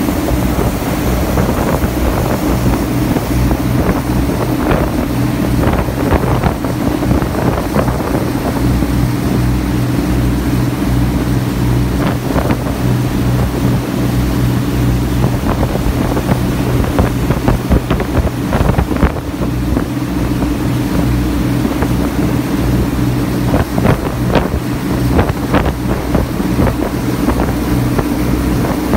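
The Funauki Maru passenger boat under way at cruising speed, its engine running as a steady low drone. Wind buffets the microphone in gusts, over the rush of water from the wake.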